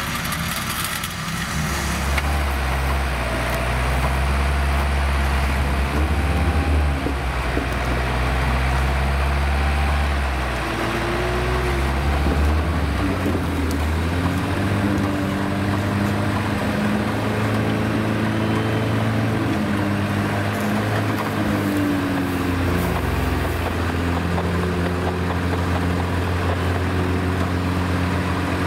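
Off-road 4x4 engine pulling under load through a bog, the revs rising and falling a few times in the first half, then holding steady.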